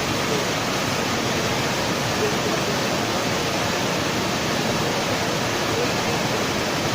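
Steady, even rushing roar of blast furnace plant machinery, with no rhythm or change.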